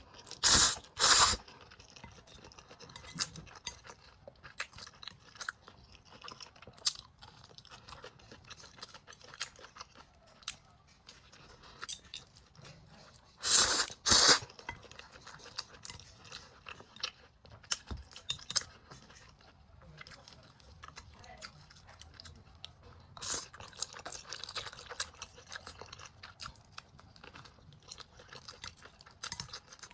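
A person chewing food up close, with many small wet clicks throughout. Loud short bursts of eating noise stand out twice in pairs, about a second in and again about halfway through.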